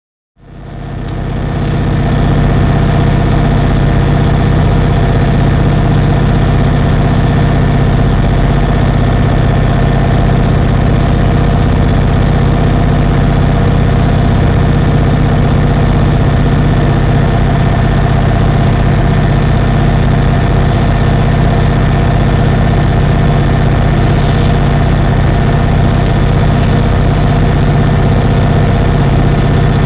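Diesel locomotive running along the track: a loud, steady engine drone with several held tones. It fades in over the first second or two.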